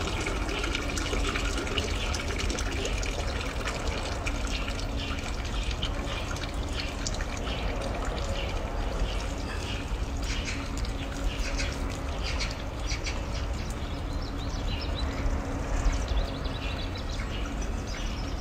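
Water trickling and splashing into a washbasin as a baby monkey's face is rinsed and rubbed by hand, a steady wash of water noise dotted with many small splashes and drips.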